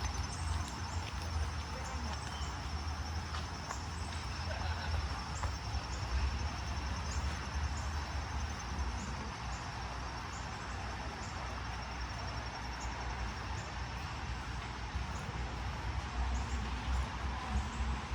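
Outdoor park ambience: a steady low rumble of distant city traffic under a general wash of background noise, with a faint high chirp repeating about once a second.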